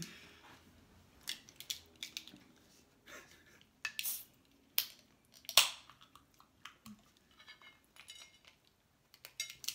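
Scattered clicks, taps and rustles of food, takeout packaging and a drink can being handled at a dinner table, with one louder sharp crack a little past halfway.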